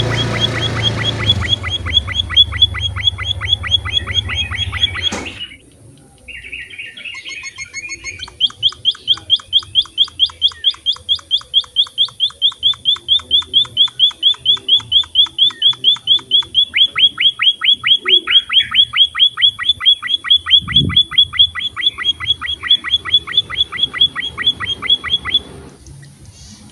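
A small finch (emprit) calling: long runs of quick, high chirps repeated evenly, about four or five a second. The first run stops abruptly about five seconds in. After a short gap a second, longer run starts and carries on until near the end.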